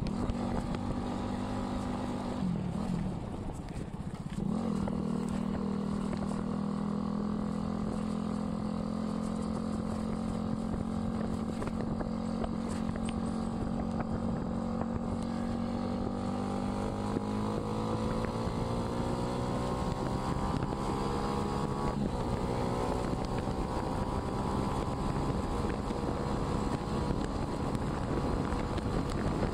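Motorcycle engine running steadily while under way. The engine note drops and wavers for a moment about three seconds in as the throttle eases, then comes back. It climbs gradually past the middle as the bike gathers speed.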